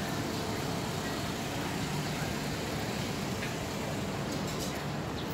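Steady city traffic hum with engine noise, even in level, with no single vehicle or event standing out.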